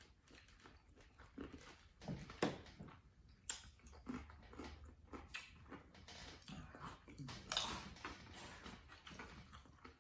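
Close-up eating sounds: crisp corn tostadas crunched with dip, with irregular sharp crackles between stretches of chewing.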